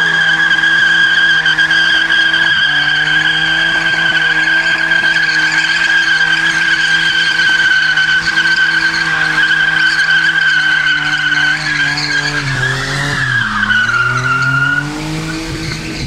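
Opel Kadett C with a 3.0 24v engine doing a long rolling burnout: its spinning rear tyres give a steady high squeal over the engine, which is held at high revs. About thirteen seconds in the revs dip and climb again, and the squeal sags in pitch and stops near the end.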